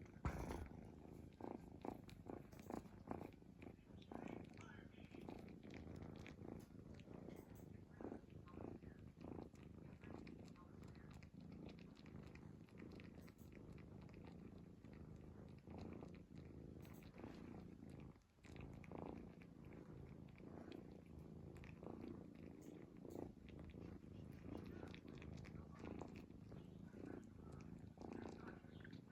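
A sleeping cat snoring softly, a faint low rumble that goes on steadily.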